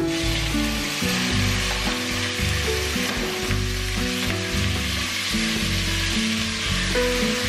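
Diced beef sizzling as it fries in a pot: a dense, steady hiss that starts suddenly, with background music underneath.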